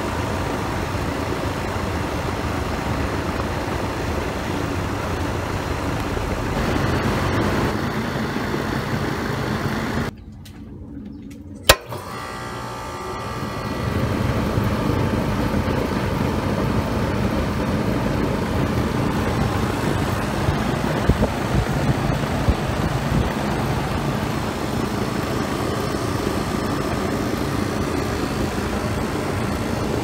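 Rheem central air-conditioning condenser unit running: the outdoor fan and Copeland Scroll compressor make a steady hum and whoosh. About a third of the way in the sound drops away briefly and one sharp click is heard, then the unit runs on, a little louder.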